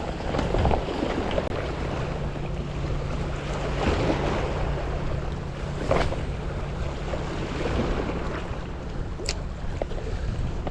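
Sea waves washing on a rocky shore, with wind rumbling on the microphone and a steady low hum underneath. Two short sharp clicks stand out, around the middle and near the end.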